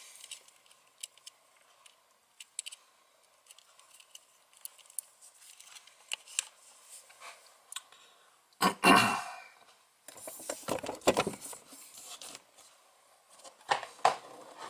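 Small clicks and handling noises of fingers fitting a micro SD card into a Raspberry Pi's card slot among its wires, with one louder, brief scrape about nine seconds in and more rustling after it.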